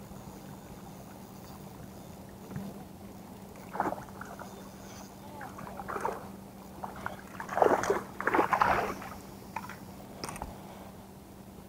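A hooked trout splashing and thrashing at the surface close to the bank as it is reeled in, in several bursts, the loudest about eight seconds in.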